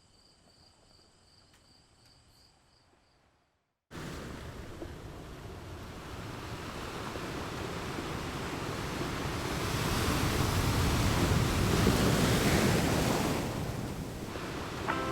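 Faint high insect trilling at very low level, then an abrupt cut about four seconds in to surf: waves washing in on the beach, building to a peak and easing off near the end.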